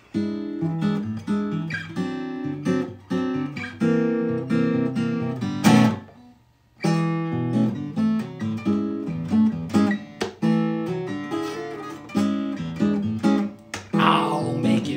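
Solo steel-string acoustic guitar playing a song's introduction in picked and strummed chords, with a brief pause about six seconds in before it carries on.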